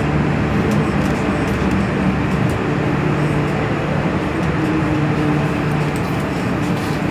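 MTR M-Train electric multiple unit heard from inside the car as it pulls into a station platform: a steady rumble of wheels and running gear with a low hum that shifts slightly in pitch as the train slows.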